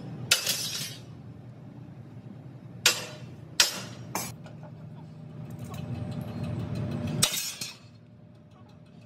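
A handful of sharp metallic clanks, five in all, each ringing briefly, the loudest about seven seconds in, over a low steady hum that cuts off soon after it.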